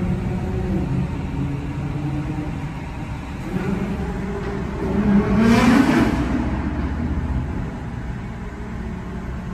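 Nissan GT-R's twin-turbo V6 running under throttle in a road tunnel, heard from a following car: steady engine drone, then a rev that rises in pitch to its loudest point about six seconds in before settling back.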